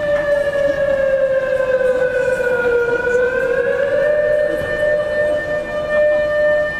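Civil defense siren sounding for an air-raid drill: a loud, steady wailing tone that sags slightly in pitch about three seconds in, then climbs back and holds.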